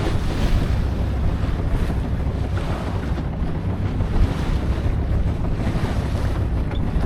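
Wind buffeting the microphone over the steady rush of sea water and swell around a small sailing yacht underway.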